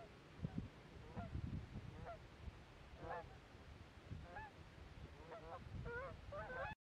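Canada geese honking: a few scattered calls at first, then more and overlapping toward the end, over a low rumble of wind on the microphone. The sound cuts off abruptly just before the end.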